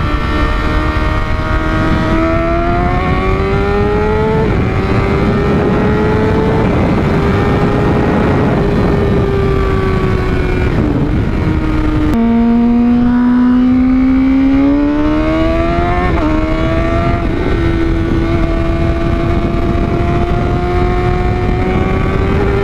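Honda CBR600RR inline-four with an aftermarket Toce exhaust, accelerating hard through the gears. The engine pitch climbs and breaks sharply at quickshifted upshifts, about 4 seconds in and again about 16 seconds in. About 12 seconds in it drops suddenly to low revs and pulls back up, all under steady wind rush.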